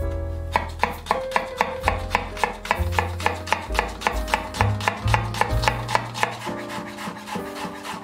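Kitchen knife chopping an onion on a bamboo cutting board: a quick, even run of sharp knocks, about four a second.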